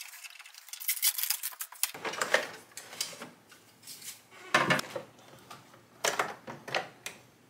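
Hard plastic clicks and clatters as the battery compartment cover of an APC Back-UPS Pro 1500 S is taken off and set aside, and the battery's connector wire is handled. A string of separate knocks, the loudest a little past halfway through.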